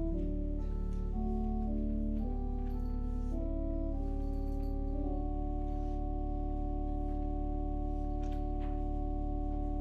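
Church organ playing slow sustained chords over a steady low bass note, settling about halfway through into one long held chord.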